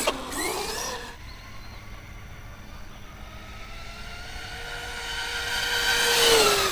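Electric motor and drivetrain whine of a 1/10-scale Pro-Line Pro-MT 4x4 RC monster truck on a full-speed run. It climbs in pitch as the truck accelerates, holds a high, steady whine that grows louder as the truck approaches, and drops in pitch as it passes close by near the end.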